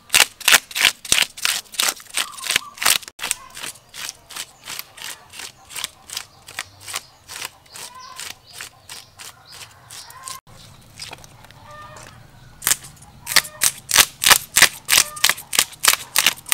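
A knife scraping the scales off a large river fish, in short, sharp strokes about three a second. The strokes are softer for a stretch in the middle and loud again near the end.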